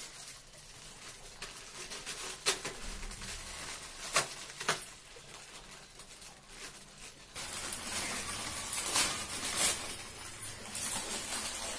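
Foil potato-chip packets crinkling and tearing as they are handled and opened: a few sharp crackles in the first half, then denser, continuous crinkling from a little past halfway.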